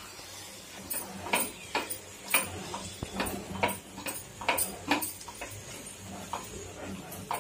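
Wooden spatula stirring chopped tomatoes in a pan, knocking and scraping against the pan in short irregular strokes, about two a second.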